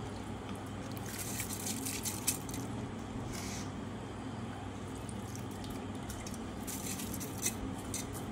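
Soft wet kitchen sounds: rice and liquid being spooned and poured into a pressure cooker of layered chicken biryani, with brief scrapes and splashes at irregular moments over a steady low hum.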